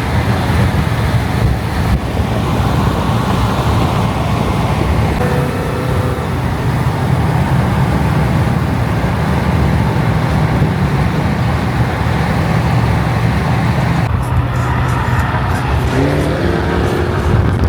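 Car engine running under steady load with road noise, then revving up near the end with a rising pitch.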